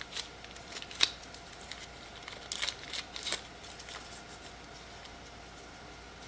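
Faint handling noises of a charging cable being taken out of its packaging: a sharp click about a second in, then a few quick clicks and rustles around three seconds in, then quiet room tone.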